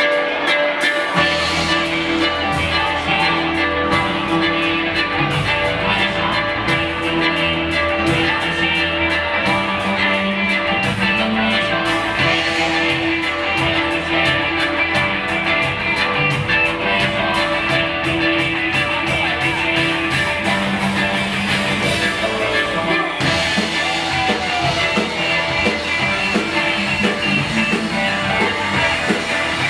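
Rock band playing live, electric guitar over bass and drums. A bass line comes in about a second in and drops away about three-quarters of the way through.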